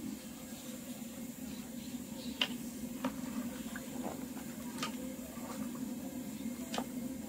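Metal ladle stirring thick curry in a large aluminium pot: a soft wet churning with a few sharp clinks of the ladle against the pot, over a steady low hum.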